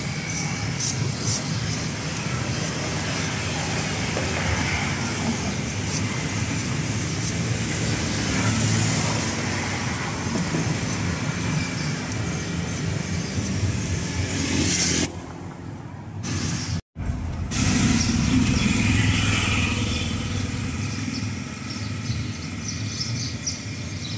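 Steady street traffic noise with repeated light chops of a cleaver shaving the husk off a young green coconut. The sound drops out briefly about two-thirds of the way through.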